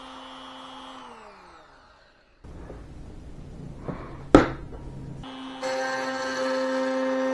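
Palm router motor running with a steady high whine, then winding down to a stop about a second in. After a short pause come handling noises and one sharp clack, the loudest sound, and then the router runs again with a steady whine.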